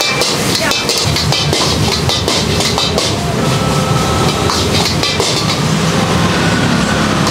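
Wok cooking: a metal ladle scraping and clanking against a wok for the first three seconds over the steady loud rush of a gas wok burner, which carries on alone after that.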